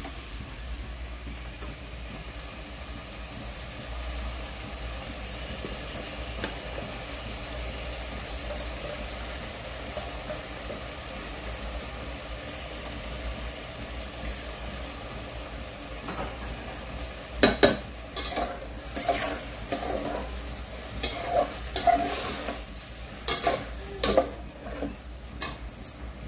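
Rice and peas sizzling in ghee in an aluminium pot over a high gas flame while being stirred, being fried before the water goes in. In the last third, a run of sharp metal clanks and scrapes of the utensils against the pot.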